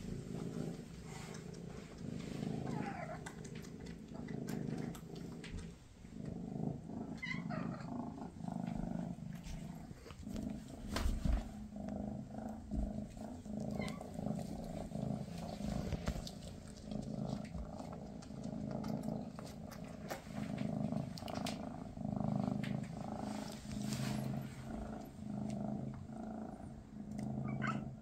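Maine Coon cat purring steadily, the purr swelling and fading with each breath about every one to two seconds, with a few short high chirps over it.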